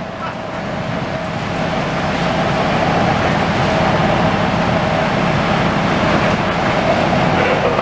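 Demolition-site heavy machinery running steadily: excavators and a dust-suppression cannon. It makes a continuous rumble and hiss with a steady mid-pitched whine, and grows louder over the first two seconds.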